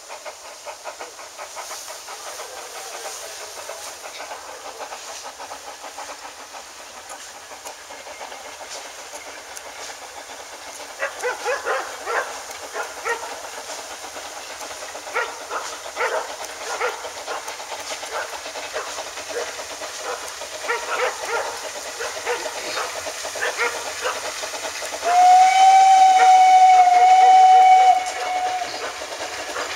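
Narrow-gauge Las49 steam locomotive working toward the listener from a distance: steady hiss at first, with uneven exhaust beats growing audible from about a third of the way in. Near the end it gives one steady steam whistle blast of about three seconds, the loudest sound.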